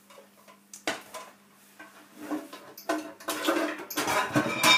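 Metal ladle knocking and scraping against a bowl of batter. A single sharp click comes about a second in, then busier clinking and scraping that grows louder toward the end.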